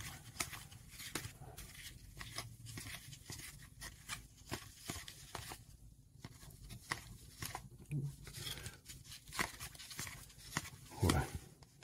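Cardboard trading cards flicked one by one off a stack and slid onto another, a run of soft irregular clicks and flicks several times a second.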